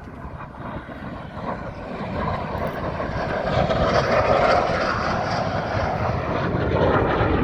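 MiG-17 jet fighter's VK-1F afterburning turbojet running as the aircraft flies by, a roar that builds from about two seconds in and is loudest around four seconds in.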